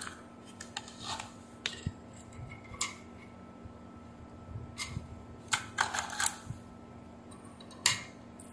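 Scattered sharp clicks and taps of small electronic components and hand tools being handled on a workbench, with a quick cluster of them past the middle, over a faint steady low hum.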